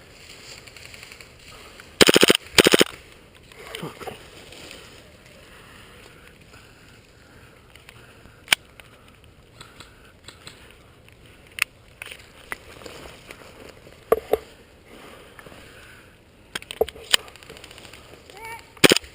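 Airsoft guns firing: two short full-auto bursts of rapid shots about two seconds in, then scattered single sharp shots.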